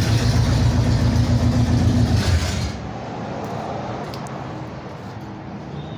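Buick Riviera engine idling loudly through long-tube headers with no mufflers (straight pipe), then cut off about two and a half seconds in, leaving a quiet background hum.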